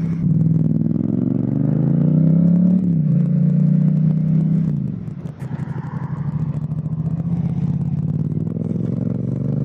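Motorcycle engine heard from the bike itself, its pitch rising under throttle for about three seconds and holding, then dropping suddenly a little after halfway as the throttle closes, before picking up again near the end.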